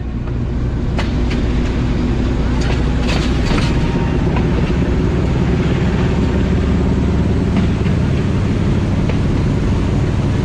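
Pakistan Railways HBU20 diesel-electric locomotive running, heard from its cab: a steady engine drone with the train's running noise. A few sharp clicks from the track come in the first four seconds.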